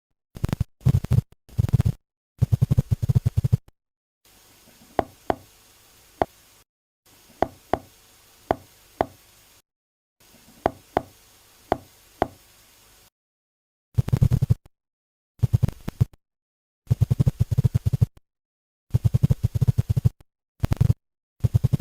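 Seahorse clicking. Bursts of rapid, low pulsing clicks come first, then sharp single clicks in pairs and threes over a faint hiss, then more rapid low bursts.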